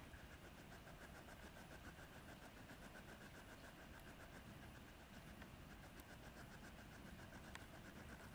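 Near silence: a faint low rumble with a faint, rapid, even pulsing.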